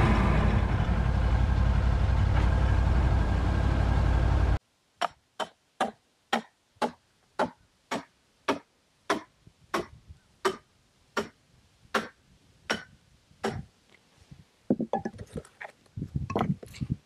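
The engine of a Peterson Slabber chainsaw mill runs steadily under cut and cuts off abruptly about four and a half seconds in. It is followed by a long run of sharp, even hammer taps, about one and a half a second and slowing slightly, then irregular knocks and scrapes near the end.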